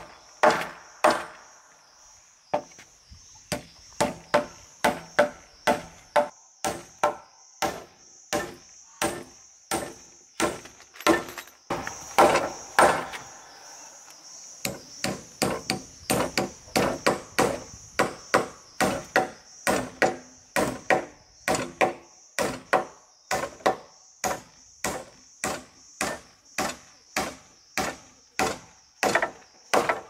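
Hammer driving steel nails into rough-sawn wooden floor planks: a steady run of sharp blows, about two a second, with short pauses between nails.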